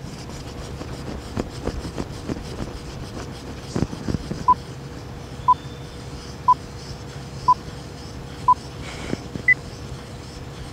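Epoxy being stirred with a wooden popsicle stick in a plastic mixing cup, with faint scraping and ticking. This is followed by a countdown sound effect: five short beeps one second apart, then one higher beep.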